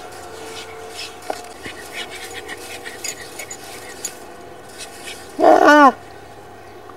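Terrier puppy giving one short, loud bark about five and a half seconds in, its pitch dropping at the end. Before it there are light scratching and clicking sounds as it paws at the sand.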